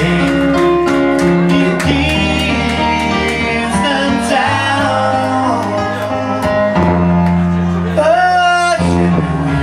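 Live band playing a reggae song: keyboards over a steady bass line, with a male voice singing.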